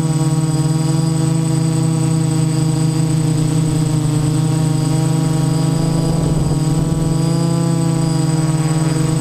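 Y6 multirotor's six brushless motors and 10-inch propellers buzzing steadily in a low hover, heard from the GoPro mounted on the craft, with a thin high whine above. The sound turns briefly rougher about six and a half seconds in.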